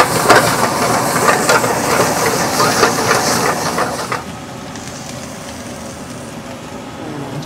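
Stir-frying: vegetables sizzling in hot oil with a metal ladle clanking and scraping against the pan. About four seconds in, the clatter stops and the sizzle falls to a quieter, steady hiss.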